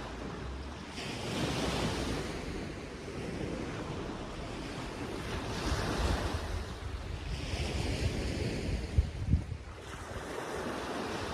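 Sea waves washing onto the beach in slow surges every few seconds, with wind buffeting the microphone; a couple of sharp wind thumps hit the microphone about nine seconds in.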